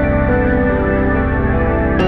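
Background music: a soft ambient track of held, sustained notes over a low pulse.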